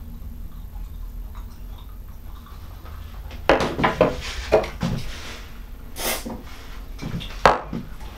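Low steady background hum, then from about three and a half seconds in a series of sharp clicks and knocks as small parts and a glue bottle are handled and set down on a workbench.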